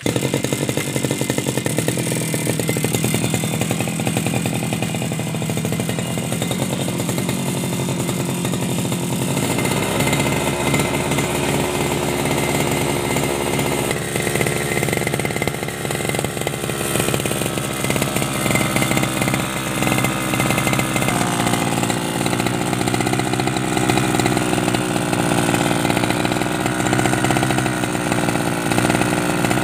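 Two-stroke brush cutter engine starting suddenly and running on steadily, its note shifting a few times. The machine had sat unused for a long time and is being test-run.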